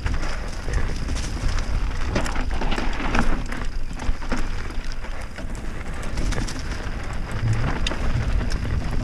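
Mountain bike riding a dirt trail: tyres crunching over dirt, gravel and leaf litter, with scattered clicks and rattles over bumps, and a steady low rumble of wind buffeting the helmet-mounted microphone.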